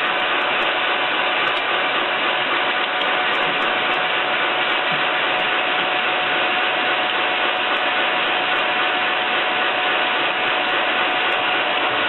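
Sawmill log-line machinery running steadily as a debarked log is carried along the infeed conveyor, an even mechanical noise with a constant high whine over it.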